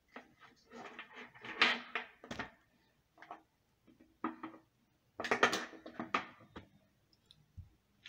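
Clattering and knocks of a small circuit board, its wires and hand tools being handled and set down on a tabletop, in two bursts of activity.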